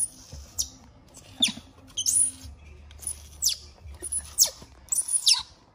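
A newborn baby monkey crying while being bathed in a small tub: a series of shrill shrieks, each falling steeply in pitch, about one a second.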